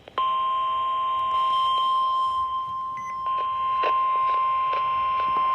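NOAA Weather Radio warning alarm tone: one steady, single-pitched tone a little above 1 kHz, the alert that comes before a severe thunderstorm warning message. A few faint clicks of radio static lie under it.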